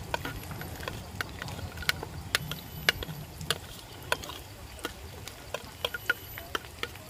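A series of sharp, irregular clicks and taps, about two a second, over a steady low hum.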